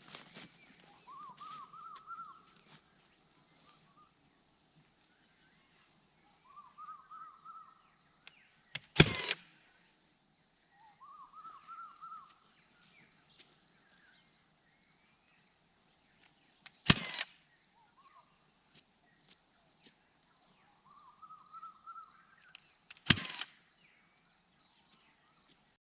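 Milwaukee cordless fencing stapler firing three single staples into hardwood fence posts, each a sharp loud shot, several seconds apart. Between the shots a bird repeats a short phrase of rising scalloped notes, over a faint steady high-pitched hum.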